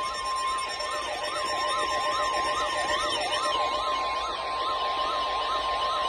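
Steady NOAA Weather Radio 1050 Hz alert tone, announcing a new severe thunderstorm warning, sounding together with an electronic siren that wails up and down about twice a second and speeds up near the end.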